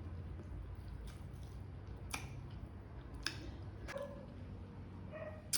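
Close-miked mouth chewing food, with four sharp wet clicks spread through it over a low steady hum. The chewing is careful, kept to one side to spare a sore spot in the mouth.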